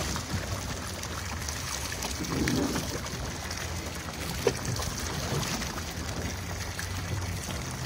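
Water sloshing and lapping against a small boat's hull, over a steady low hum. There is a single sharp knock about four and a half seconds in.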